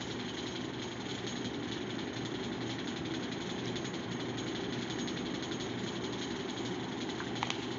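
Steady mechanical noise of a machine running: an even hum with a hiss above it, unbroken and unchanging.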